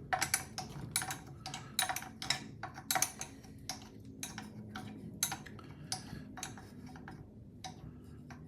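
Irregular sharp metallic clicks and clinks of hand tools working a nut off the outboard engine's casing, about two to four a second with short pauses.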